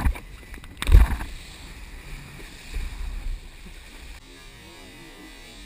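Wind buffeting an action camera's microphone over water rushing and spraying under a wakeboard, with a thump as the board meets a ramp and a louder thump about a second in. The noise drops off abruptly a little after four seconds in.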